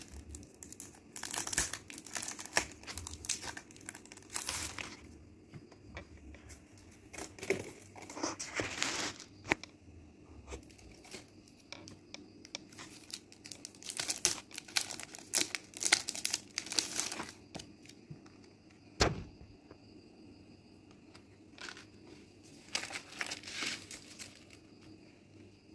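Clear plastic packaging of sticky-note sets crinkling and rustling as the packs are handled, in irregular bursts with short pauses. There is one sharp knock about 19 seconds in.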